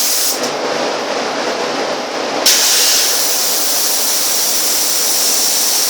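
Sagola compressed-air spray gun hissing as the trigger is pulled: a short burst right at the start, then a steady spray from about halfway through to the end. A steady lower background hum runs under it.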